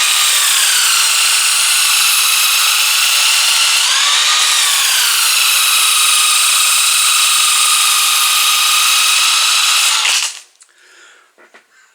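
Electric power tool spinning sandpaper as a knife blade is sharpened against it to raise a burr: a steady high whine whose pitch dips briefly twice, then the motor cuts off near the end.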